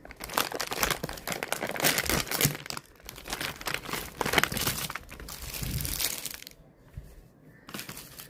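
Nestlé Munch Bites snack packet crinkling and rustling as it is torn open by hand, with dense crackling for most of the time that thins to a few scattered rustles near the end.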